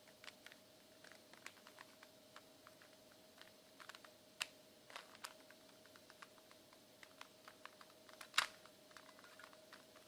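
Faint irregular clicking of a plastic 3x3 Rubik's cube as its layers are turned by hand through an algorithm, with two sharper snaps about four and eight seconds in, over a faint steady hum.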